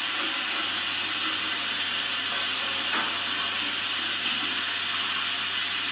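A steady, even hiss that never changes in level.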